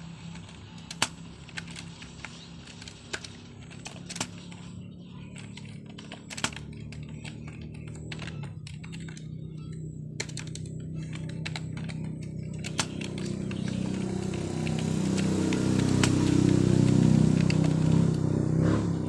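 Computer keyboard keys clicking in scattered, irregular keystrokes over a low hum, which swells louder in the last few seconds.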